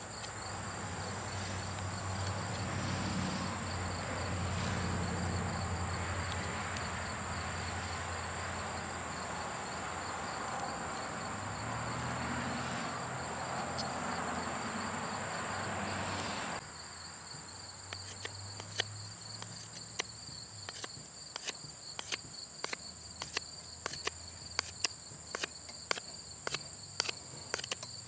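Knife carving and notching a wooden stick on a log round: after a steady rushing noise that cuts off abruptly a little past halfway, a run of sharp clicks and knocks as the blade bites into the wood, one or two a second and growing more frequent. A steady high-pitched hum runs underneath.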